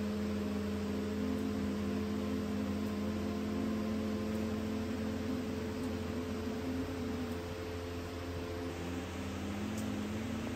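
Binturong giving a long, low, steady moaning hum. Its pitch falls away about two-thirds through, then rises again near the end. A steady ventilation hum runs underneath.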